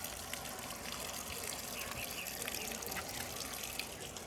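Water running steadily into the tub of a Panasonic 8.5 kg top-load washing machine as it fills.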